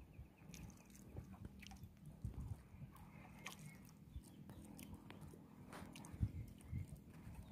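Faint scattered knocks, thumps and short clicks as fishing line is pulled in by hand in a small wooden boat.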